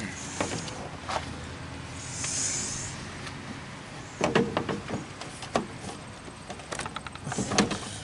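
Hard plastic headlamp housing of a GM minivan being pushed and worked into its mounting by hand: a string of sharp plastic clicks and knocks, more of them in the second half, as its locating peg is coaxed in until it seats.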